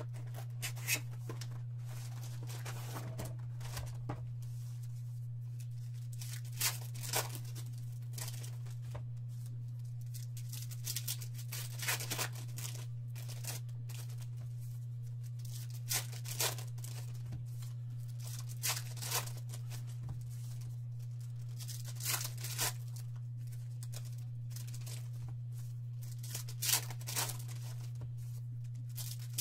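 Foil wrappers of 2018 Diamond Kings baseball card packs being torn open and crinkled by hand, in short tearing bursts every second or two, often in pairs. A steady low electrical hum runs underneath.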